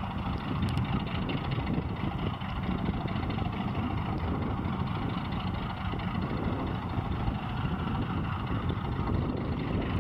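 ChME3 diesel shunting locomotive's six-cylinder diesel engine running steadily under load as it hauls a freight train: a low, even engine drone.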